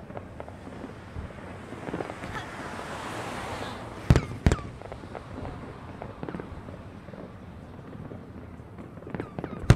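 Aerial fireworks bursting: a sharp bang about four seconds in, a second half a second later and a third near the end, with scattered smaller pops and a stretch of crackling in between.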